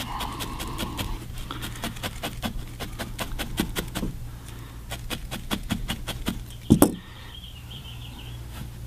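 Felting needle repeatedly stabbing into wool, a quick run of soft ticks several a second, with one louder knock about seven seconds in.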